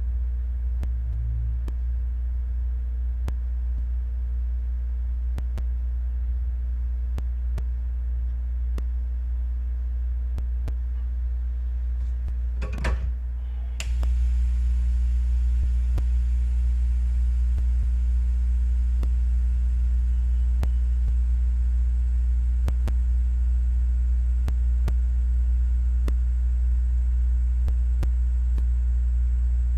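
Steady low electrical hum with faint, fairly regular ticks. A short rustle comes about thirteen seconds in, and just after it the hum steps up louder and stays there.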